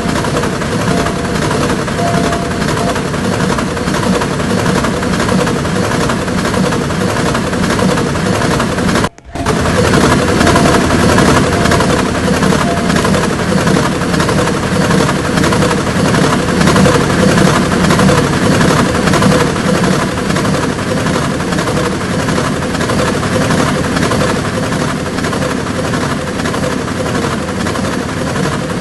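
A train passing over a railway level crossing, its wheels clattering rapidly and steadily over the rails, with a brief break in the sound about nine seconds in.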